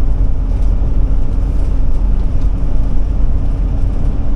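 Ford E-450 motorhome driving at highway speed: a steady, loud rumble of engine, tyres and road noise with a constant low hum.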